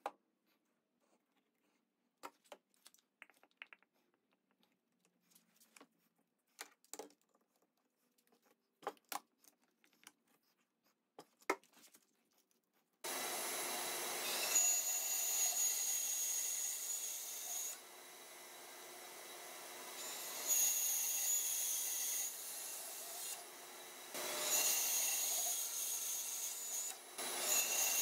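Light scattered clicks and taps at first, then a bandsaw starts abruptly about halfway through and runs, cutting a thick laminated wood block, with a steady high whine. It grows louder in three stretches.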